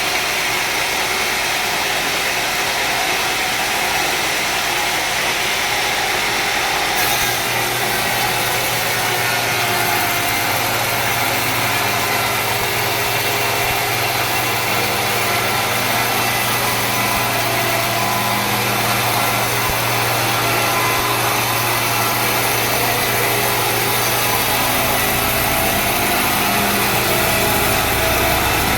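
A sawmill running and sawing through a mahogany log, with a steady engine and cutting noise. A low, steady hum sets in about a quarter of the way through.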